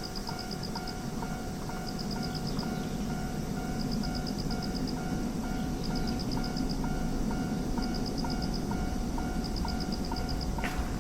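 Japanese railroad crossing warning bell ringing steadily at about two to three strokes a second, while the low rumble of an approaching train grows louder.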